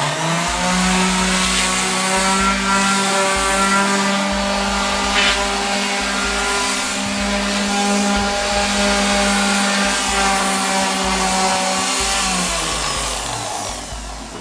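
Electric orbital sander spinning up, running steadily at a high hum for about twelve seconds while sanding weathered wood, then switched off and winding down near the end.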